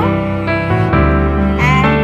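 Soft instrumental background music of sustained notes that change every half second or so.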